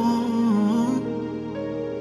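Slow worship ballad music: a voice holds the last note of a sung line and lets it go about a second in, over steady sustained backing chords that carry on alone.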